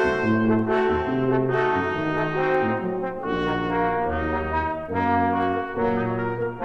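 Background music played on brass instruments: held notes in harmony over a low bass line, changing every half second or so.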